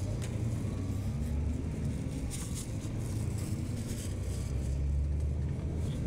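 Steady low rumble of a car's engine and tyre noise, heard from the moving vehicle.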